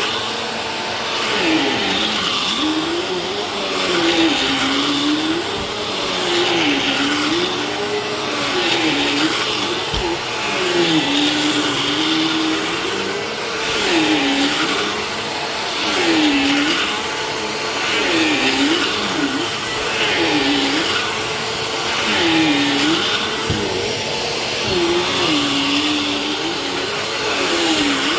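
Vacuum cleaner running. Its motor tone dips in pitch and recovers about every two seconds, with matching swells in loudness, as happens with each stroke of the nozzle over the floor.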